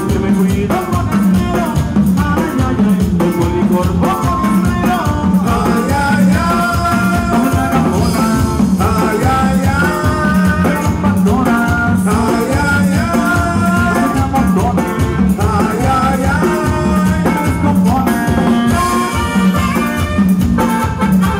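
Live norteño band playing an instrumental passage on button accordion, bajo sexto, electric bass and drum kit, with a steady, even dance beat.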